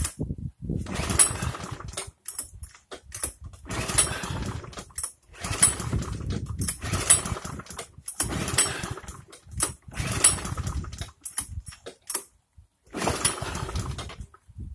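Recoil starter of an Einhell petrol lawn mower pulled again and again, about nine times, each pull turning the engine over briefly without it catching. The mower has become harder and harder to start.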